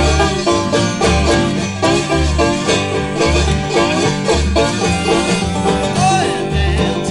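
Live acoustic bluegrass-style trio playing: a banjo picking out the lead over strummed acoustic guitar and an upright bass keeping a steady beat.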